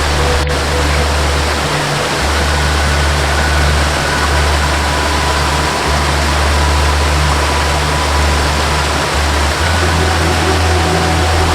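Waterfall rushing steadily, mixed with a slow melody of long held notes over a low bass that shifts every couple of seconds.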